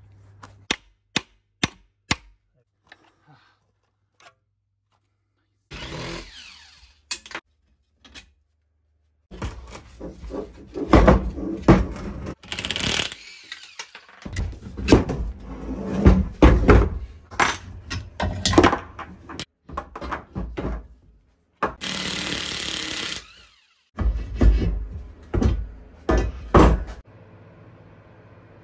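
Workshop tool sounds in short clips that start and stop abruptly: sharp knocks and clanks of tools on metal parts, with a power tool running steadily for about a second and a half in the second half.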